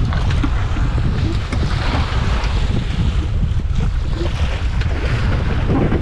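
Wind buffeting the microphone over choppy lake waves washing around a small rowing boat, the splashing hiss swelling twice.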